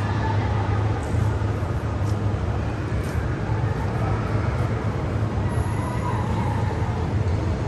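Steady background noise with a low hum running through it and faint voices in it.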